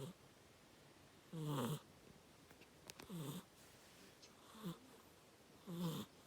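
Snoring: five short snores, roughly one every second and a half, each sliding down in pitch.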